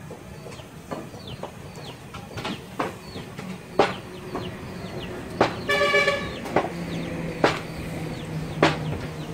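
Sharp knocks at uneven intervals, about nine in all, with a short, flat-pitched honk-like call lasting about half a second roughly two-thirds of the way through.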